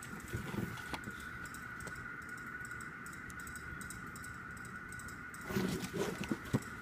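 Faint handling of an album package and photobook: soft taps and rustles of card and paper, about half a second in and again near the end, over a steady faint high whine.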